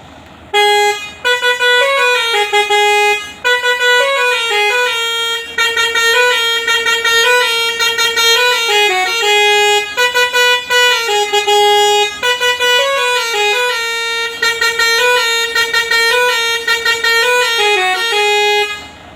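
A musical bus horn playing a melody: quick runs of stepped notes in phrases with short breaks between them, stopping near the end.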